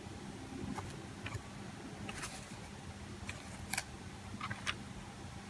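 Scattered light clicks and taps of small parts and tools being handled while working on an opened iPhone's camera, the loudest about two-thirds of the way through, over a steady low hum.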